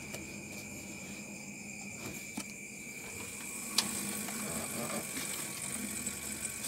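Freezer compressor running in a small refrigerator, a low steady hum under a steady high-pitched tone, with a few light clicks and one sharper knock a little before the four-second mark.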